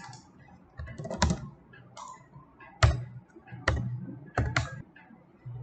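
Computer keyboard being typed on: scattered single keystrokes at uneven intervals, a few sharper than the rest.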